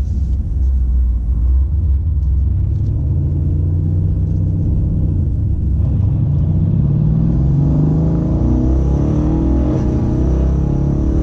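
Twin-turbo 5.8-litre V8 of a tuned Mercedes E63 AMG coupe heard from inside the cabin, running low and steady at first. From about six seconds in the car accelerates and the engine note rises, climbing again near the end.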